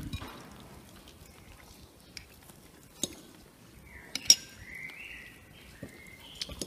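Metal cutlery clinking against china plates and a glass sauce bowl as food is cut and served. There are a few scattered clinks, the sharpest about four seconds in.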